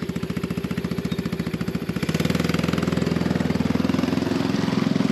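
Small gas engine of a kids' mini jeep running at idle with an even pulse, then revving up about two seconds in as the jeep pulls away.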